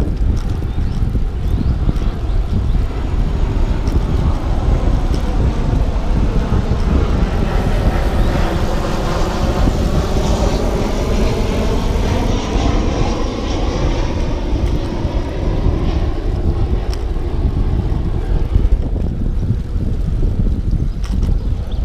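Wind rushing over the microphone of a road bicycle ridden at about 12 mph. A passing engine's drone swells through the middle and fades again.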